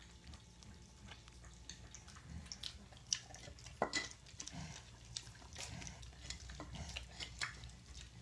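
Mini piglets feeding: faint wet smacking and lapping clicks scattered throughout, with one sharper click about four seconds in.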